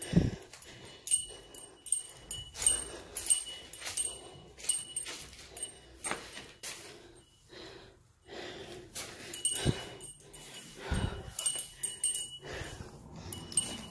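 Footsteps crunching over debris on a littered floor, roughly one or two a second, with a light metallic jingle along with the steps. A few low thumps come near the start and again about ten seconds in.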